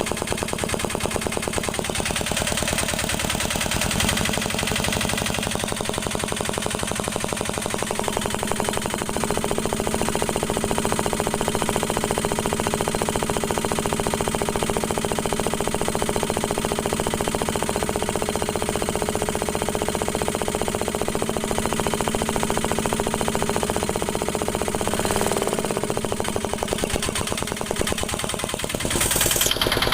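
A repaired engine running steadily with a rapid, even firing pulse. Its pitch briefly shifts about 25 seconds in.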